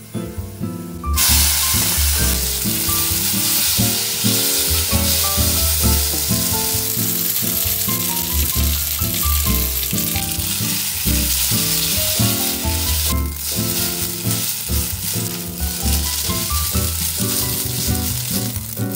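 Oil sizzling in a hot frying pan, starting suddenly about a second in. First sliced garlic frying, then spaghetti and gamtae sauce tossed in the pan. Background music with a light melody plays under it.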